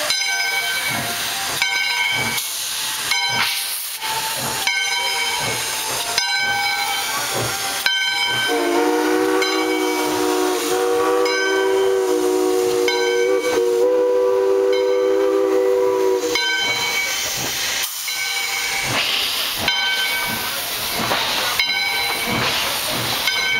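Steam locomotive No. 40, a 2-6-2, pulling away from a station: hissing steam with regular exhaust beats. About a third of the way in it gives one long blast on its chime whistle, several notes together, lasting about eight seconds. Near the end the coaches roll past.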